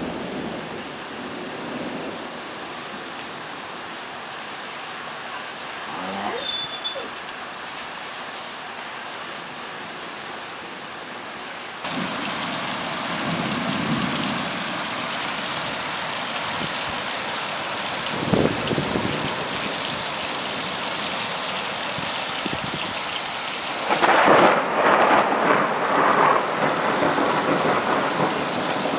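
Thunderstorm: steady rain hissing, growing louder about twelve seconds in, with low thunder rumbling a few times. Near the end a louder, crackling peal of thunder breaks out.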